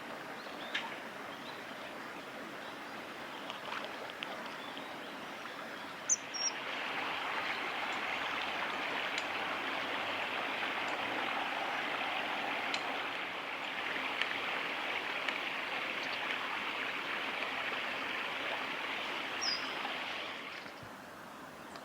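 Steady rush of flowing stream water, which grows louder about six seconds in and eases back near the end. Two short, high, falling bird calls cut through it, one about six seconds in and one near the end.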